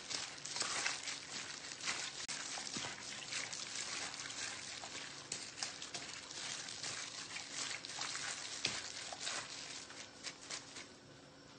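Wet squishing and splatting of raw chicken pieces being kneaded by a plastic-gloved hand in a soy sauce and sake marinade in a stainless steel bowl, a rapid run of small wet clicks. It dies down about a second before the end.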